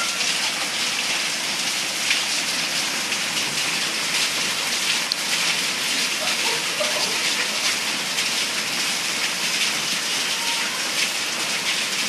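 Steady rain falling, a dense even hiss.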